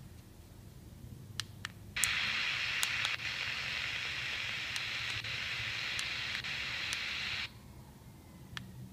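HanRongDa HRD-737 handheld receiver's speaker hissing with static for about five seconds while it tunes through the airband, with no signal received; the hiss cuts off suddenly. A few sharp clicks come before and during it.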